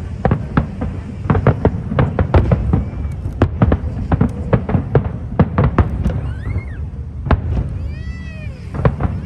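Fireworks display: a rapid run of sharp bangs and crackles over a steady low rumble. About eight seconds in, a short high-pitched squeal rises and falls.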